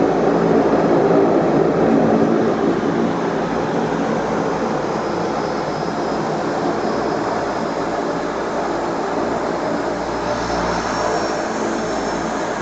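Seaplane's wing-mounted propeller engines running, heard inside the passenger cabin as a steady loud drone with a pitched propeller hum, a little stronger in the first two seconds and then even.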